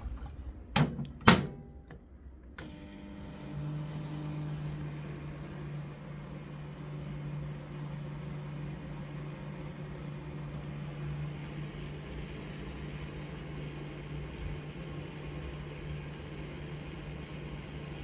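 Samsung microwave oven: two sharp clicks about a second in as the door is shut, then it starts up about two and a half seconds in and runs with a steady hum and fan noise while heating food.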